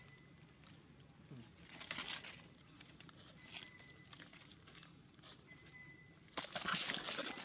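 Crinkling of a drink carton squeezed in the hand as a baby monkey sucks from it, with a brief crackle about two seconds in and a louder burst of crinkling near the end lasting about a second.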